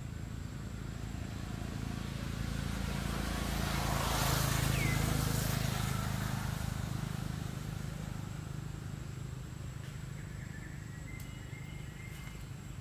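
A motor vehicle passing by. Its noise swells to a peak about four to five seconds in, then fades away.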